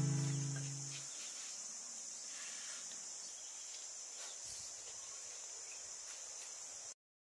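Guitar music dying away in the first second, then a steady, high-pitched drone of insects that cuts off suddenly near the end.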